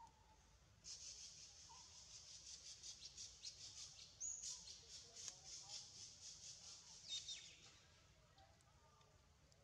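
A high, fast-pulsing chirring call from a wild animal. It starts about a second in and stops near the end, with a few faint short chirps around it.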